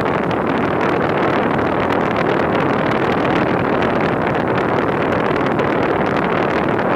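Rheem central air conditioner's outdoor unit running in cooling mode in cold weather, a loud, steady noise without a clear tone.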